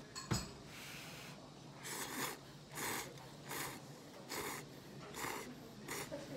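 Short airy slurps of ramen noodles, about six in a row, roughly one a second, starting about two seconds in. A sharp knock, like a utensil on the bowl, comes about a third of a second in.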